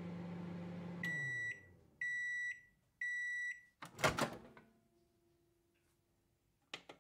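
Microwave oven running with a low hum that winds down as it stops, then three even beeps about a second apart signalling the end of the cooking time, followed by a sharp clack as the door pops open.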